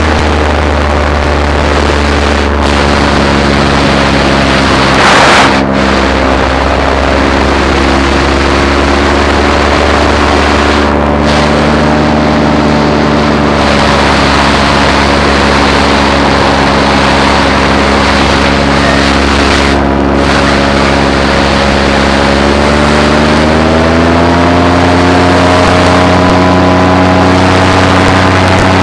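Paramotor engine and propeller running steadily, its pitch rising about three quarters of the way through and holding higher. A short rush of noise about five seconds in.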